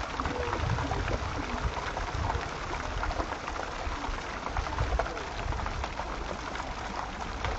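Water jets of a large garden fountain splashing steadily into its stone basin.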